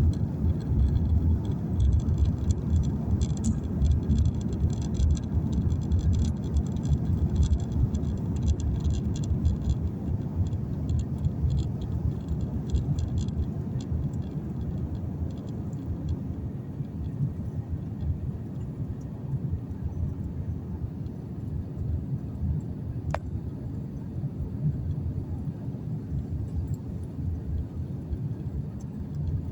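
Steady low vehicle rumble with a rattly hiss over the first dozen seconds, then easing somewhat; a single sharp tick about 23 seconds in.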